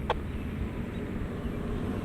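Steady low rumble of distant road traffic, with a single sharp click just after the start.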